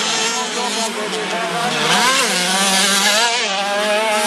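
Several 50cc two-stroke motocross bikes revving hard at once, their engine notes overlapping and sweeping up and down as the riders work the throttle over the crest and jumps. One engine climbs sharply in pitch about two seconds in.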